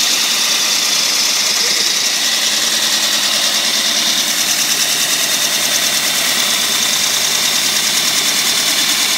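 Concrete core drill's motor running steadily and loudly.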